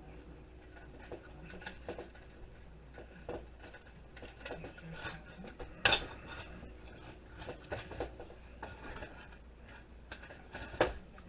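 Light taps, clinks and rubbing of a dismantled toaster's metal parts being handled, with one sharper clank about six seconds in.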